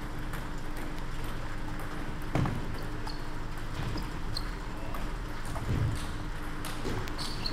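Table tennis ball clicking off bats and table during a rally, the hits coming as short sharp ticks, some with a brief high ping. Two heavier thumps stand out, a little over two seconds in and near six seconds, over a steady low hum.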